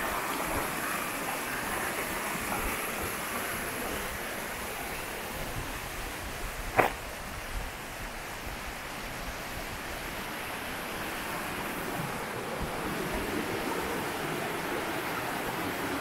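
Mountain stream rushing over rocks, a steady water noise, with one sharp knock about seven seconds in.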